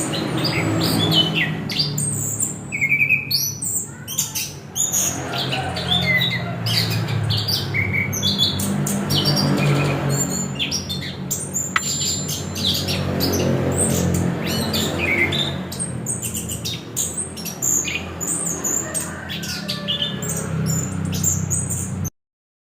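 Chestnut-capped thrush (anis kembang) singing a fast, continuous run of varied chirps, short whistles and squawky notes, over a steady low hum. The sound cuts off abruptly shortly before the end.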